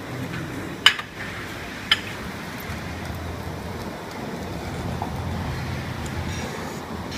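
Low, steady background rumble of a restaurant dining room, with two sharp clinks of tableware about one and two seconds in.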